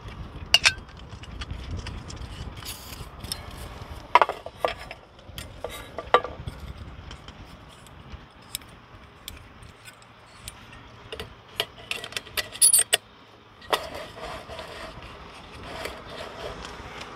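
Small metal clicks and clinks of a Jetboil-style backpacking stove being put together by hand: the burner is screwed onto a fuel canister and a brass pot-support ring is fitted onto the burner. The clicks come scattered, with a quick run of them a little past the middle.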